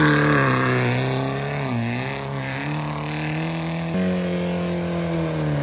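A lifted Audi car's engine pulling under load on an off-road climb. The revs sag about two seconds in and jump back up near four seconds.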